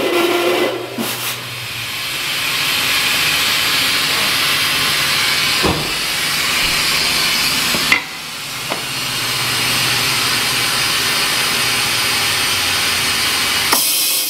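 Compressed air hissing steadily as a tire is inflated and its bead seated on the wheel with a Cheetah bead-seater tank. Sharp clicks come about six and eight seconds in, the hiss dipping briefly after the second, and a last click comes just before the hiss cuts off at the end.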